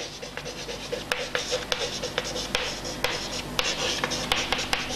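Chalk writing on a chalkboard: continuous scratchy strokes broken by many short, sharp taps as the chalk strikes the board.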